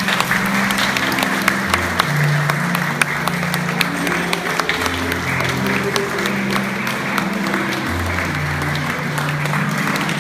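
A crowd applauding over slow instrumental music with long held low notes; the clapping is densest for the first few seconds and then thins.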